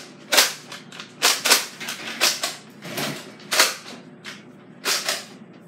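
A series of short, sharp taps and clicks at uneven intervals, about eight in all.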